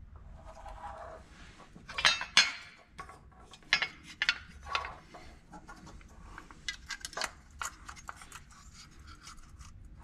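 Handling clatter as a headlight is worked in its metal headlight bucket and small metal parts are picked up and fitted: sharp clicks and knocks, the loudest two about two seconds in, and a quicker run of light ticks a little past halfway.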